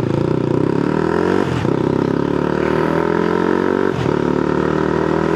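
Honda Grom's 125 cc single-cylinder engine pulling under acceleration, its pitch climbing steadily and dropping back at gear changes about one and a half seconds and four seconds in.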